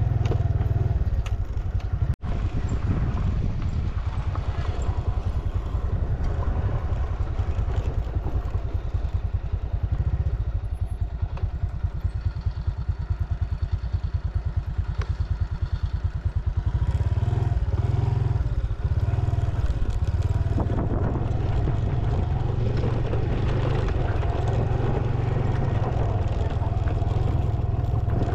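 A small motorcycle engine running steadily, heard from on the bike, with a heavy low rumble on the microphone.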